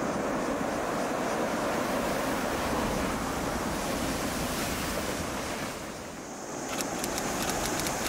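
Sea surf: waves breaking and washing up over a pebble beach, a steady rushing wash that eases briefly about six seconds in before rising again.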